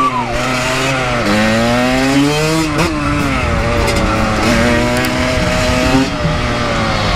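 Dirt bike engine revving as the bike pulls away and rides along a street. Its pitch climbs and drops several times as it accelerates and shifts gears.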